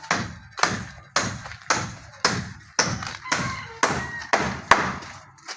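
Footsteps walking at a steady pace, about two thuds a second.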